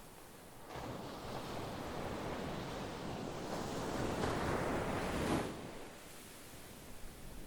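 Sea waves breaking on the shore: one wave rushes in a little under a second in, swells to its loudest around five seconds, then washes out and falls back to a quieter hiss.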